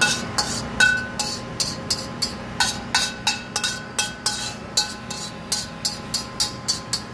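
Metal utensil scraping and tapping against the inside of a steel wok, about three strokes a second, each leaving a short metallic ring from the pan.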